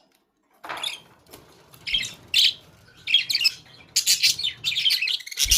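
Pet budgerigars chirping: scattered short, high-pitched chirps at first, then a near-continuous run of chirps from about four seconds in.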